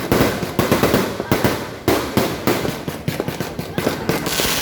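Fireworks and firecrackers going off in a dense, irregular string of sharp bangs and pops, several a second, overlapping one another.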